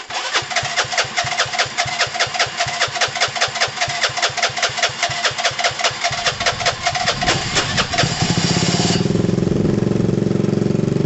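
Gilera DNA 125's single-cylinder four-stroke engine being cranked on its electric starter, with about seven even pulses a second for six or seven seconds. It then catches and runs steadily.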